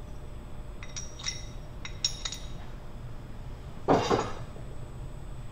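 Hard metal parts knocking together as they are handled: several sharp clinks with a brief ringing, then one louder clunk about four seconds in.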